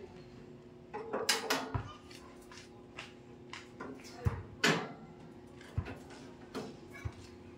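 Hand tool knocking and scraping on the sheet-metal floor frame of a motorcycle sidecar, in irregular clinks and scrapes. The loudest come about a second in and again near five seconds.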